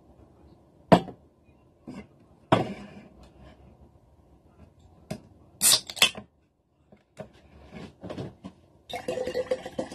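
Knocks of a glass bottle being set down on a table, then an aluminium soda can pulled open about halfway through with a sharp hiss in two quick bursts, followed by light clinks and handling.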